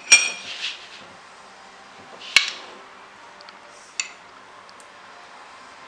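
A metal spoon clinking against a bowl and dish while sauce is spread over chicken pieces. There are three separate clinks: one at the start, a sharp one about two and a half seconds in, and a ringing one about four seconds in.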